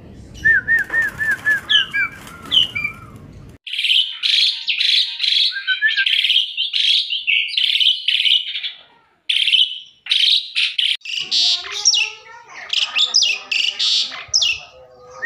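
Asian pied starling (jalak suren) singing loudly: a varied, rapid song of whistled and harsh chattering notes, opening with a run of about eight repeated looping whistles. The song cuts abruptly from one recording to another twice.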